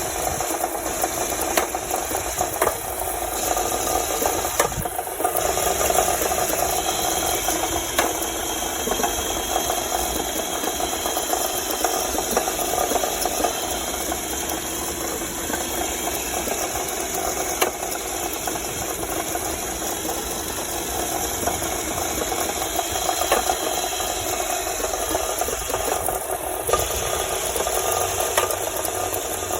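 Honda Civic engine running steadily with a continuous rapid mechanical knocking and rattling from inside the engine, with an occasional sharper click.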